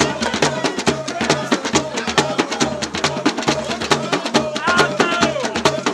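Live Yoruba party music led by drums, with a Yoruba talking drum (dundun) among them: a fast, dense clicking beat over a low bass line that repeats evenly.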